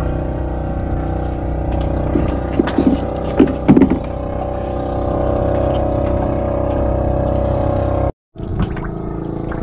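A motorboat engine running steadily, with a few sharp knocks a little before the middle. The sound cuts out completely for a moment about eight seconds in.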